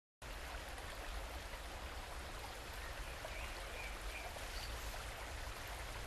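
Steady rush of running water, like a stream, with a few faint short high chirps in the middle.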